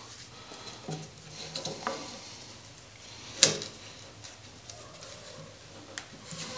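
Light handling knocks and taps as a plastic cutting-board slide strip is pushed into place against a steel press frame, with one sharper knock about three and a half seconds in.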